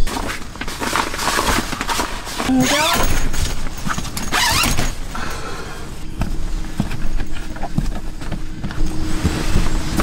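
Zipper being drawn and tent fabric rustling as a window panel of a Thule Basin rooftop tent is unzipped and opened, with two long zips about three seconds in and again a second and a half later, then fabric handling and light knocks.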